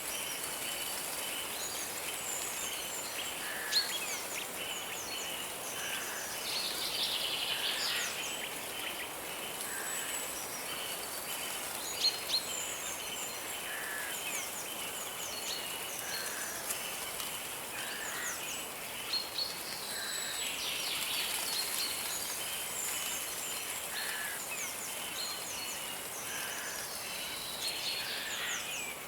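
Forest birds chirping and calling, many short chirps and quick downward-sweeping notes scattered throughout, over a steady high hiss.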